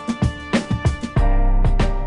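Background music with a steady beat and a deep bass line that comes in about a second in.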